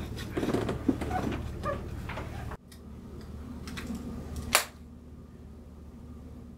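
Small clicks and handling sounds over a low steady hum, dropping to a quieter hum partway through, with one sharp click about four and a half seconds in as white wireless earbuds are handled.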